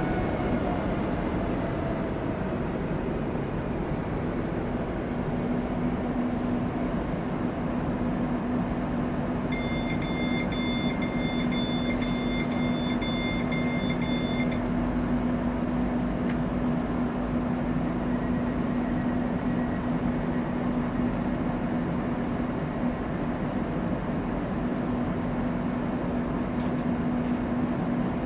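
Commuter train standing at a station platform: a falling whine dies away in the first second or two as it comes to rest, then a steady electric hum. For about five seconds near the middle, an electronic beeping pulses.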